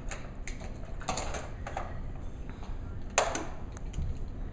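Plastic toy trucks being handled and set down on a hardwood floor: scattered light clicks and knocks, the sharpest about three seconds in.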